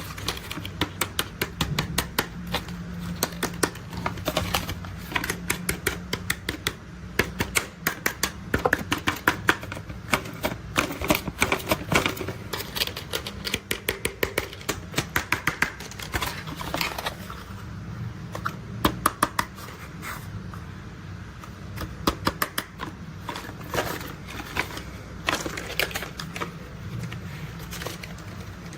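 Plastic toy construction vehicles being handled, with quick runs of small clicks and clatters over a steady low hum.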